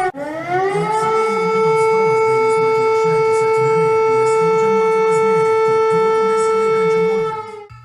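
Civil defense siren sounding in an emergency alert: the pitch rises over the first second, holds one steady tone, then falls away and cuts off near the end.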